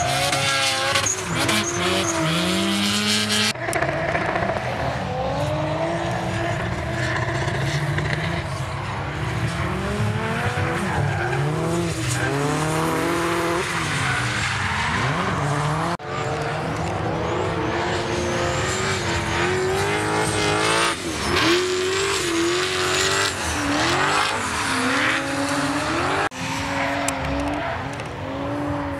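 Drift cars' engines revving hard and dropping back again and again, with their tyres squealing as the cars slide sideways through the corners.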